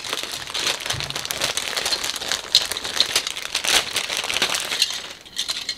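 Thin clear plastic bag holding a model kit's plastic parts trees crinkling and rustling as it is handled and opened, thinning out near the end.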